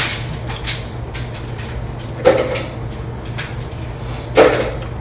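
Mouth chewing and crunching tortilla chips close to the microphone: three loud crunches spaced about two seconds apart, over a steady low hum.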